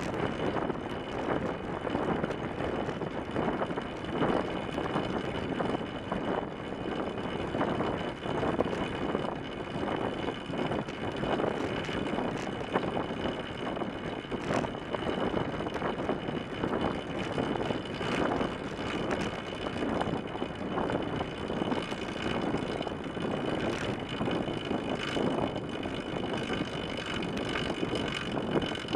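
Steady rush of wind on a track bicycle's fork-mounted camera, mixed with the hum of the tyre rolling on the wooden velodrome boards at speed.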